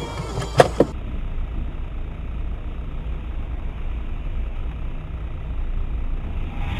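Steady low rumble of a car's engine and road noise as picked up by a dashcam. Two sharp knocks come just before it, within the first second.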